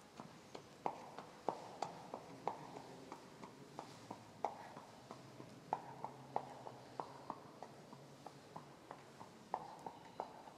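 Horse's hooves knocking on hard ground in irregular steps as it shifts its feet, about two or three clops a second.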